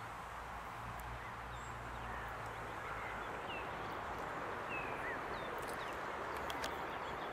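Steady woodland background hiss with a few short, faint bird chirps scattered through it.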